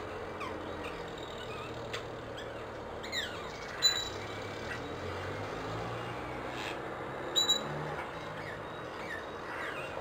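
Rose-ringed parakeet giving short, sharp squawks: one about four seconds in and a quick double about seven and a half seconds in. A few faint falling whistles and a steady low traffic hum run behind.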